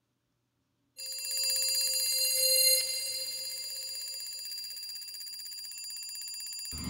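Alarm clock bell ringing in a fast, continuous metallic trill, starting about a second in and easing off slightly after its loudest moment. A deep thump comes in right at the end.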